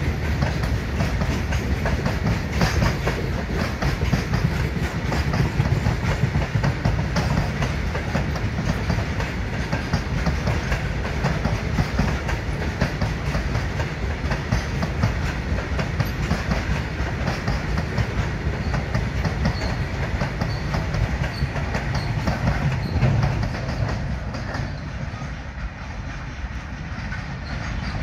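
Long Indian Railways goods train of covered and open freight wagons rolling past, a steady rumble with wheels clattering over the rails. The sound drops off about four seconds before the end as the tail of the train goes by.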